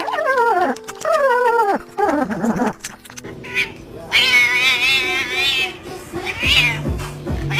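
Puppy whining: three short whines that each fall in pitch, then a long wavering high whine about four seconds in, and another short one near the end.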